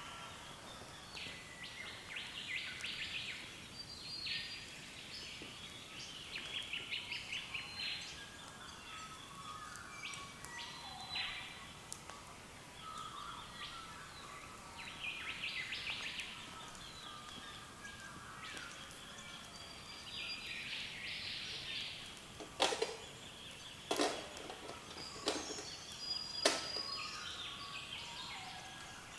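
Early-morning chorus of several birds calling and singing over one another, with a quick run of repeated notes around six seconds in. Between about 22 and 27 seconds four sharp, loud snaps stand out above the birdsong.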